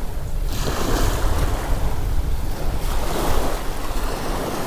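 Small waves washing up onto a pebble beach in slow swells of hiss, with wind rumbling on the microphone.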